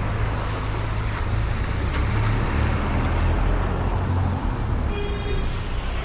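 Road traffic close by: car engines running as vehicles pass, a steady low rumble with tyre noise over it. A brief high tone sounds about five seconds in.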